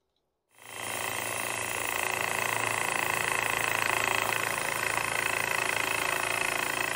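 Small wet rock saw running, its diamond blade grinding through a piece of crazy lace agate: a steady high grinding whine over the motor's low hum, starting abruptly about half a second in.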